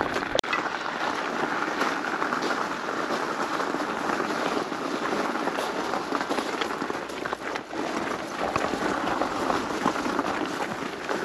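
Pushchair wheels and footsteps crunching steadily on a gravel path.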